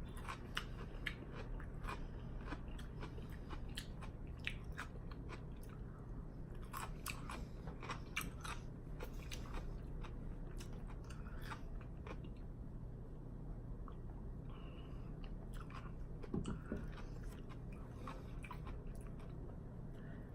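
Close-miked crunching and chewing of crisp raw cucumber: irregular sharp crunches between softer chewing.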